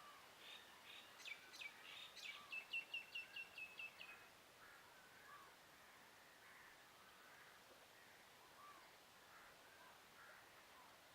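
A bird calling: a burst of short, high notes in the first four seconds, ending in a quick run of about eight notes. Faint, scattered bird calls follow.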